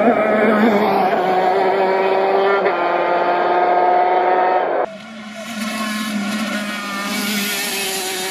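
KZ125 shifter kart's 125cc two-stroke engine running hard at high revs, a loud buzzing note whose pitch steps down in the middle. About five seconds in it drops suddenly to a quieter engine note with more hiss, which carries on with small shifts in pitch.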